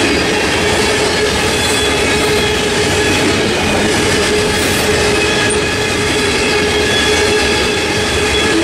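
Loaded covered hopper cars of a freight train rolling past at close range: a steady, loud rumble of wheels on rail, with a steady squealing tone running over it.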